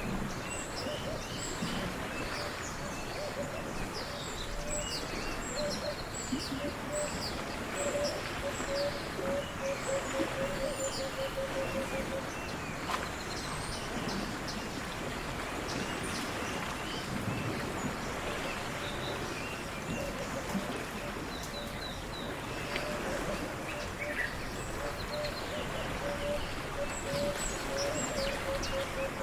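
Outdoor nature ambience: several birds chirping and calling over a steady rushing background noise. Twice, a low trill of quick, evenly repeated notes runs for a few seconds.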